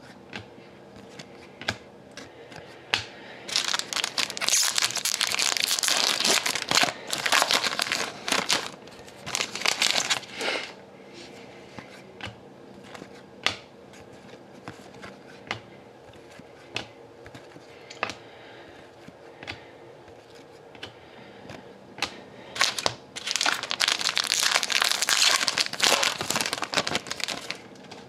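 Hockey card pack wrappers being torn open and crumpled. This comes as two long stretches of crinkling, one a few seconds in and one near the end. In between are scattered light clicks of cards being handled.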